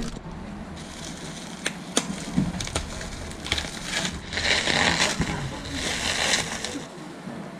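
Bubble wrap being slit with a box cutter and pulled open by hand: a few scattered clicks and snaps, then about two seconds of dense plastic crinkling and crackling.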